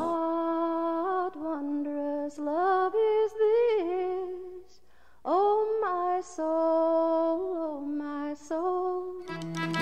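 A woman singing a slow, lullaby-like melody on her own, in held notes phrase by phrase. There is a short pause about halfway, after which she swoops up into a long note.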